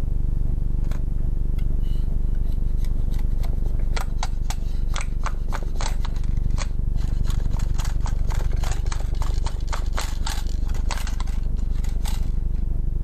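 A run of sharp clicks and snaps from hard plastic parts, a few at first, then rapid and irregular from about four seconds in until near the end, over a steady low hum.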